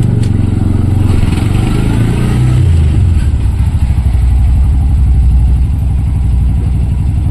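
Auto-rickshaw engine running, its pitch dropping about two and a half seconds in and then holding steady at a lower speed.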